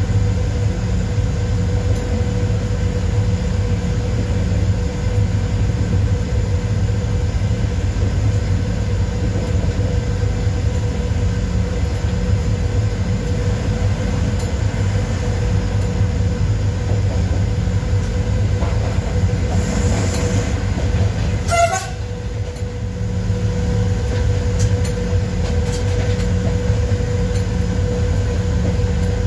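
ET22 electric locomotive running under way, heard from inside the cab: a steady low rumble with a steady whine, and one brief sharp sound about three-quarters of the way through.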